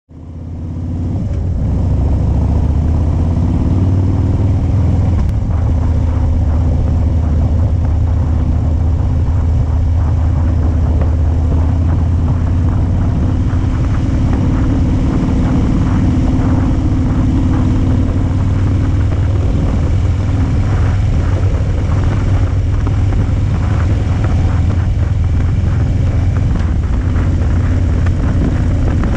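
Motorcycle engine running steadily at road speed, heard from on the bike along with wind and road noise. It fades in over the first couple of seconds.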